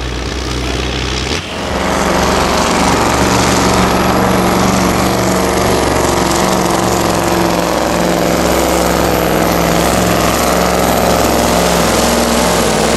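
Heavy diesel truck engine pulling under load, then from about a second and a half in a Scania pulling truck's diesel engine running flat out and steady, loud, as it drags the weight-transfer sled, with a thin high whistle above it.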